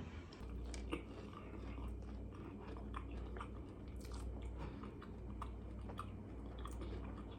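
Close-mic chewing of a mouthful of crispy fried chicken sandwich: soft, irregular crunches and wet mouth clicks, with a low steady hum underneath.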